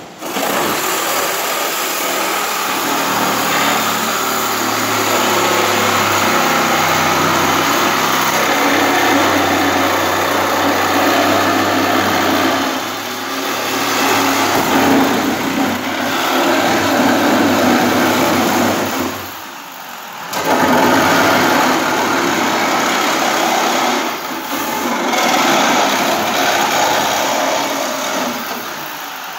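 A power cutting tool running hard as it cuts through the steel of an old car's front body section. Its pitch wanders with the load, and it stops briefly three times, the longest break about 20 seconds in.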